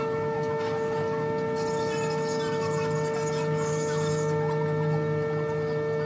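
Lifting bridge's operating machinery giving a steady, even hum made of several fixed tones. A hiss joins it for a few seconds in the middle.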